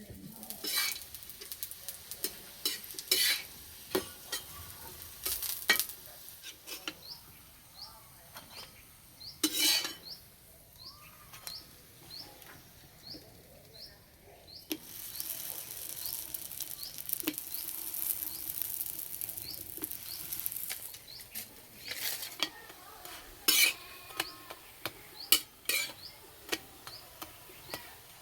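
Paratha frying in oil in a pan, sizzling, with a metal spatula scraping and knocking on the pan as the flatbread is turned and lifted. The sizzle gets louder for several seconds about halfway through.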